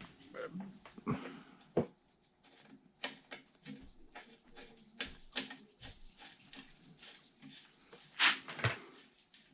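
Light irregular clicks and taps of a greased bicycle pedal being threaded onto the crank arm and tightened with an Allen key, with a louder rustle about eight seconds in.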